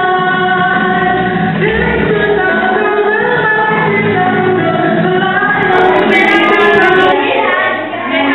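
Group singing: a woman's voice with other voices joining in, singing a song with long held notes.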